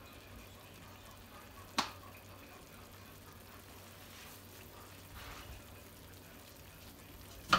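Chicken thighs simmering quietly in broth in a skillet, a faint steady hiss. Two sharp clicks break in, one about two seconds in and a louder one near the end.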